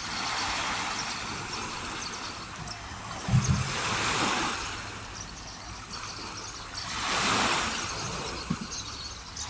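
Water washing in swells, rising and falling about three times, with a short low thump about a third of the way in.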